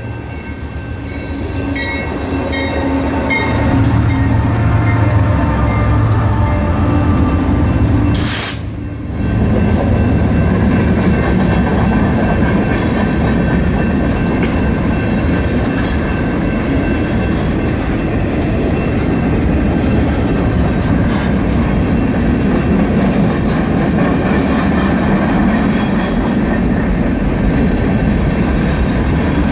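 BNSF diesel-led freight train passing a grade crossing. The locomotives' engines drone low for roughly the first eight seconds, then the freight cars roll by with a steady rumble of wheels on rail, with the crossing signal's bell ringing throughout.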